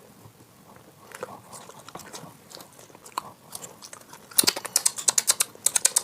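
Soft biting and chewing of a plain dosa, then about four seconds in the louder, rapid clicking of a spinning prize wheel's pointer flicking over its pegs.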